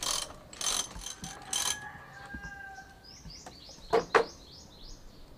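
Ratchet wrench clicking in quick strokes as it backs out a muffler mounting bolt, in three spells during the first couple of seconds, then two sharp metal clicks about four seconds in.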